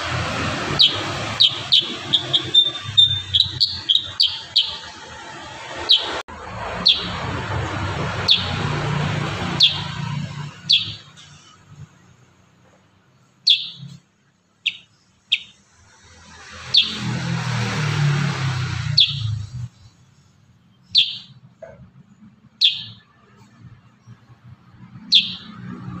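Kurincang bird giving short, sharp chirps, a quick run of them over the first few seconds, then single chirps every second or two. A rushing background noise swells up twice.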